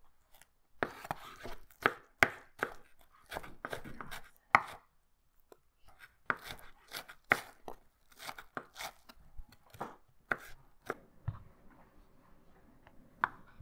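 Firebox Folding Chef Knife chopping an onion on a cutting board: quick, irregular sharp knocks of the blade hitting the board, in two runs with a short pause between. One more knock comes near the end.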